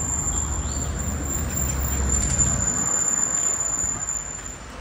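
Street ambience: a low traffic rumble that fades about two-thirds of the way through, under a steady high-pitched whine.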